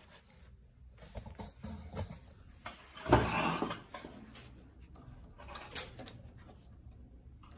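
Handling noise: a short rustling scrape about three seconds in, then a few light clicks as hands work at the metal needle bed of a knitting machine.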